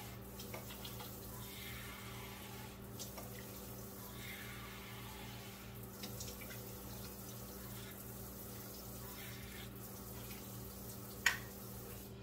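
Kitchen tap running steadily, filling a pot with about three cups of water for a stock. A sharp knock comes near the end.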